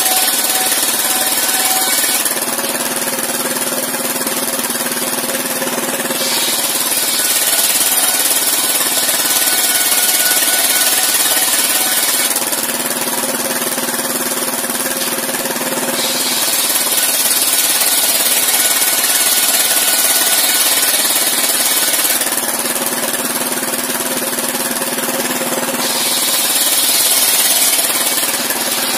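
Engine-driven sawmill circular saw ripping long planks while its engine runs. A harsh high hiss comes with each cut: one ends about two seconds in, then three more of about six seconds each. Between cuts the blade spins freely with a lower steady hum.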